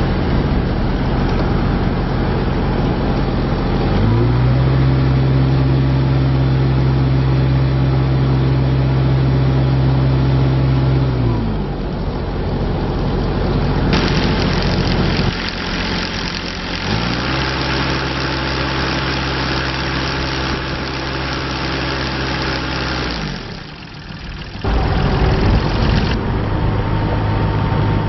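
2012 Terex TC16 mini excavator's diesel engine running, revved up twice, held high for several seconds each time, then dropped back to idle.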